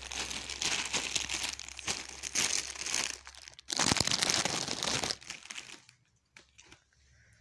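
Clear plastic packaging bag crinkling and rustling as a white high-neck top is pulled out of it by hand. The crinkling is loudest around four seconds in and stops about six seconds in, leaving a few faint clicks.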